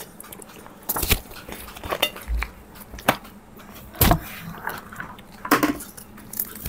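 Pages of a paperback picture book being flipped and handled: a series of sharp paper rustles and flaps about a second apart, the loudest about four seconds in.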